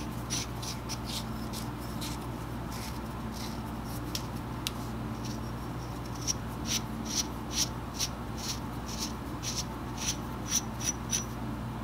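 Aluminium nut being turned by hand on a triple-lead threaded aluminium bolt: short metallic scrapes and clicks of thread rubbing on thread, about two a second in the second half, over a steady low hum.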